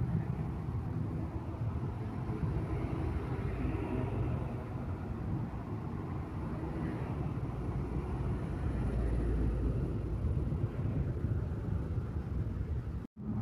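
Road traffic: diesel light trucks and motorcycles driving past, a steady low engine rumble that is loudest about two thirds of the way through as a truck passes close. A brief break near the end, where the sound cuts out for a moment.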